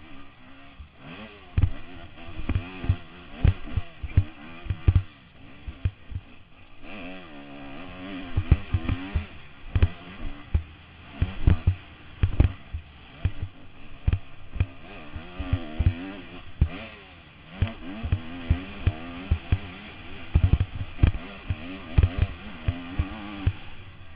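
Enduro dirt bike engine revving up and falling back again and again as it is ridden hard over rough dirt, with frequent sharp thumps and knocks, heard from a helmet-mounted camera.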